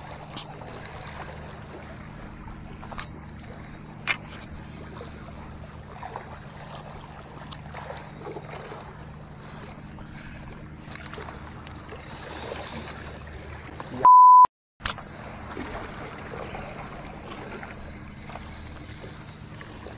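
Sea water washing against breakwater rocks, with a steady low hum and a few light clicks. About fourteen seconds in, a loud half-second beep at one steady pitch cuts to a moment of dead silence.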